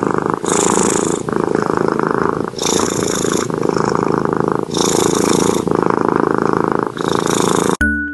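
Cat purring loudly, a fine rapid rumble that swells and eases with each breath about every two seconds, then cuts off suddenly near the end.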